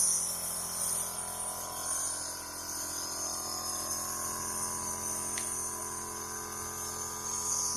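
Compressor nebulizer running with a steady, monotonous motor drone and a hiss of air, delivering mist during an inhalation treatment.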